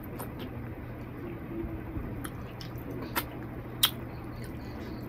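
A person eating rice and curry with the fingers: wet, squishy mouth and finger sounds, with a few sharp smacking clicks, the loudest a little under four seconds in.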